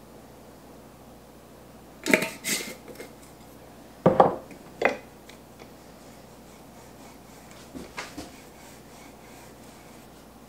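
Kitchen clatter of dishes and utensils being handled on a counter: a pair of knocks about two seconds in, two louder ones around four to five seconds, and a few faint taps later on.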